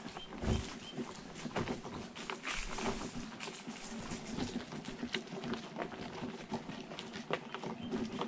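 Wheelchair wheels rolling over a crushed-stone gravel trail: a continuous, irregular crunching and crackling of small stones under the tyres.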